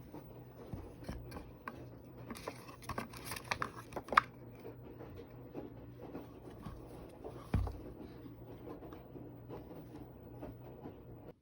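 Packaging being unwrapped and handled by hand: paper and plastic rustling and crinkling with scattered small clicks. The handling is busiest a couple of seconds in, with a sharp click about four seconds in and a low thump at about seven and a half seconds.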